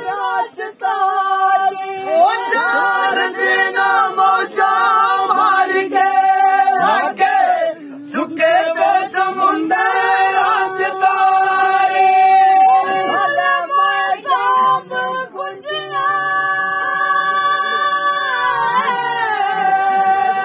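Men singing a Dogri folk song (a khadatu) in loud, drawn-out phrases with long held notes, breaking off briefly about eight seconds in.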